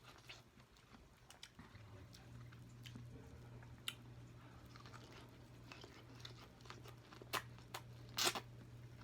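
A person chewing food close to the microphone, with wet mouth clicks and smacks and a few louder bites about seven and eight seconds in. A steady low hum sits underneath from about two seconds in.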